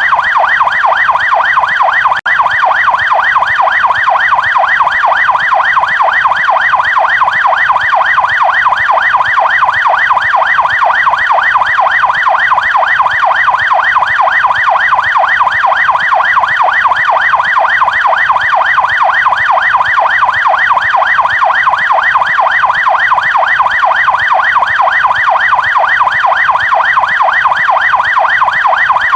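American police car's electronic siren on the fast yelp setting: a loud, rapid up-and-down sweep repeating without a break, except for a very brief dropout about two seconds in.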